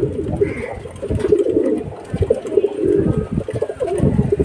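Andhra high-flyer pigeons cooing in their loft, low warbling coos overlapping one another.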